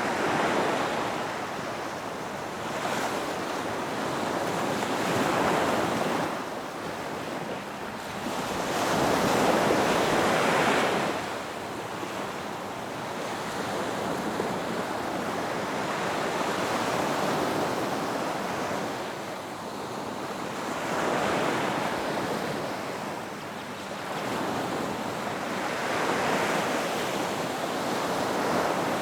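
Ocean surf: waves breaking and washing in, the rush of water swelling and fading every few seconds, with the biggest surge near the middle.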